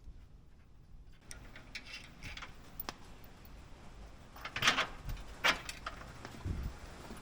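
Scattered light clicks and clinks of handling noise, with a couple of louder knocks about four and a half and five and a half seconds in.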